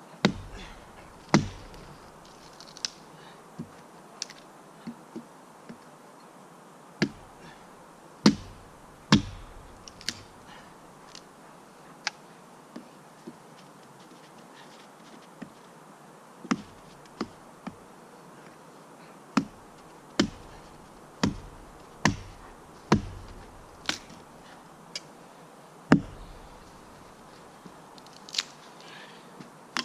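Axe chopping into a knotty, pithy piece of wood: about twenty sharp strikes at uneven gaps of half a second to several seconds, some much louder than others.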